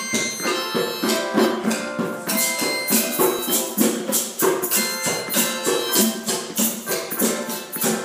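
Group of hand percussion instruments playing an improvised piece: drums and shakers keep a steady beat, with bright ringing notes over it.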